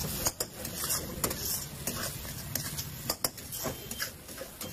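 Metal ladle scraping and clinking against a steel wok as fried rice is stirred and tossed, in irregular strokes over a steady hiss.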